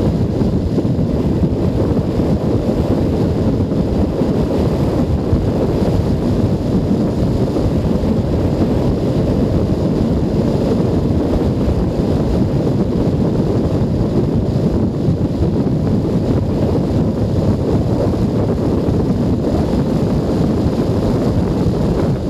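Steady wind rush buffeting a helmet camera's microphone while riding a motorcycle at road speed, with the Junak M12 Vintage's 125 cc engine running underneath.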